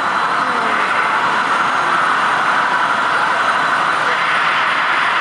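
Kiddie amusement-park train running along its elevated rail track, giving a steady, even running noise.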